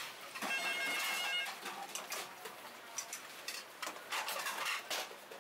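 Irregular clattering and scraping noises, with a steady high electronic beep lasting about a second near the start.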